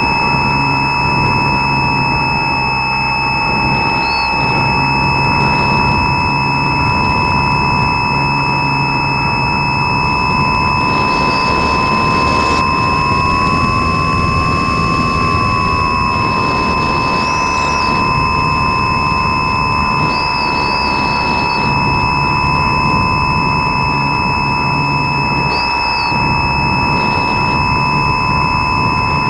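RC airplane's motor and propeller picked up by a camera mounted on the plane: a steady whine over wind rush, rising a little in pitch about halfway through and settling back. Two steady high tones sit above it.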